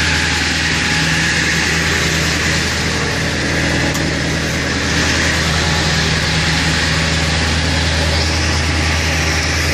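Ford F-550 tow truck's engine running at a steady raised idle, set to about 1200 rpm for working the bed and winch.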